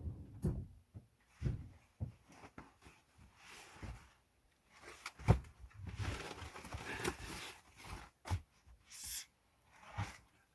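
Irregular knocks, thumps and rustling of objects being handled, with one sharp click about five seconds in and a brief hiss near the end.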